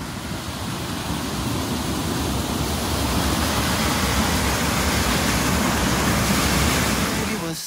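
Waterfall: the steady rush of falling water, growing gradually louder, then cut off abruptly at the very end.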